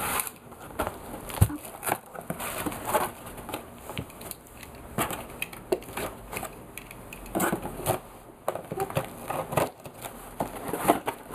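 Cardboard shipping box being handled and opened by hand: flaps scraping and rustling, with crackling from the packing inside and many short irregular clicks and scratches.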